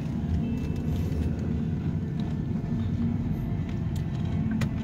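Car interior noise while driving: a steady low rumble of engine and tyres on the road, heard from inside the cabin.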